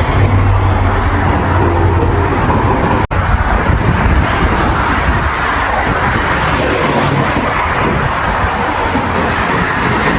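Steady road traffic noise with a low engine hum, cut off for an instant about three seconds in.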